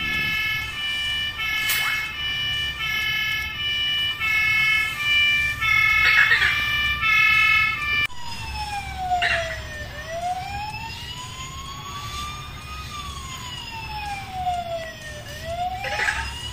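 Electronic siren from a toy MAN fire engine's sound module. It first plays an alternating two-tone siren, then about halfway switches to a wailing siren that slowly rises and falls, with a few short clicks over it.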